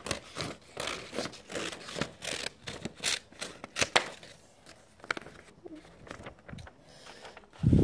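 Sheets of paper being handled and shifted about, a run of crisp rustles and light clicks that thins out after about four seconds. A louder dull rush starts right at the end.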